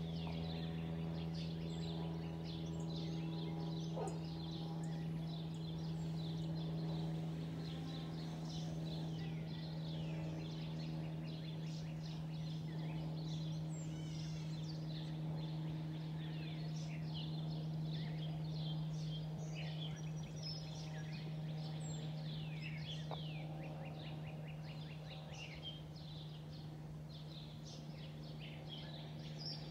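Cessna 172 light aircraft droning overhead, a steady low hum with overtones that fades slightly near the end as the plane moves away. Birds chirp and sing throughout.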